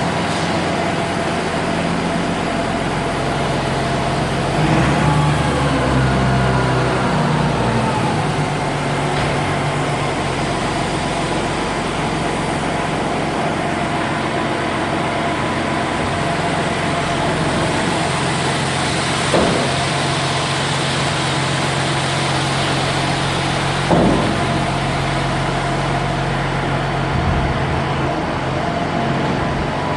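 Farm tractor engine running steadily under load, its pitch shifting about five seconds in, with two brief knocks later on.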